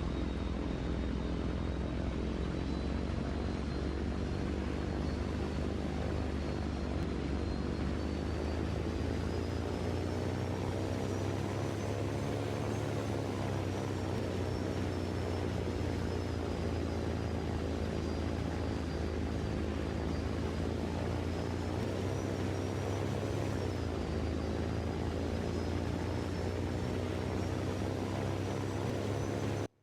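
An engine running steadily, its pitch drifting slowly up and down, with a thin high whine riding on it. It cuts off abruptly just at the end.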